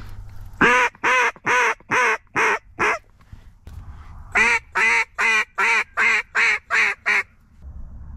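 Mallard duck call blown in hen quacks: a run of about six loud quacks fading toward the end, then after a short pause a second, even run of about seven.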